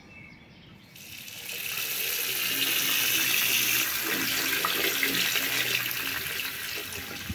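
Tap water running into a white sink and splashing over a hand held under the stream, draining away. The rush starts about a second in and stops abruptly near the end.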